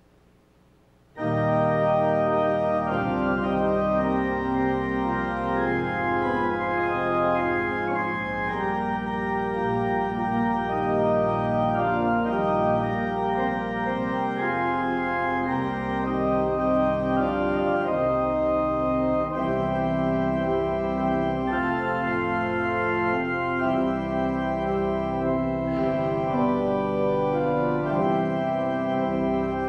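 Church organ starts playing about a second in, after near silence: a postlude of held chords that change every second or two, over deep pedal notes.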